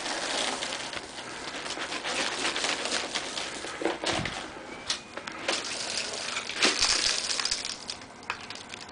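Footsteps on a concrete path and leaf litter, an irregular series of scuffs and crunches from dry leaves underfoot.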